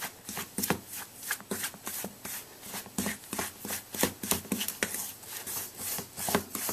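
A fork pushing and scraping through flour and softened butter in a metal mixing bowl, rubbing the butter into the flour: a run of short, uneven scrapes, about three a second.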